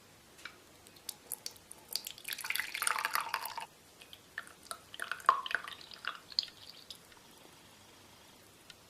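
Milk boiled with chopped onion being strained into a glass: a short pour of liquid lasting about a second and a half, then separate drips, with small clicks and taps before and after.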